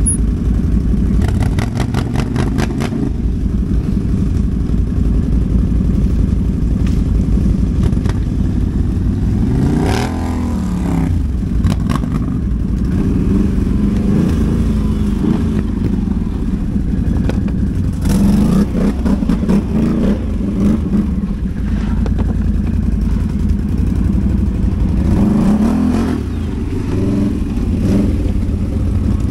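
ATV engine running under way, its pitch rising and falling repeatedly as the throttle is opened and closed, with scattered clattering knocks.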